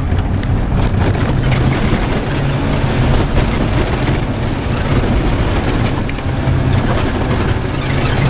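Isuzu Trooper heard from inside the cab, driving over a rough dirt track: the engine running steadily with its note shifting a little, over continuous road noise and scattered knocks and rattles from the bumps.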